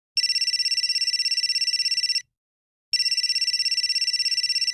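Cell phone ringing with a fast, trilling electronic ring: two rings of about two seconds each with a short pause between them.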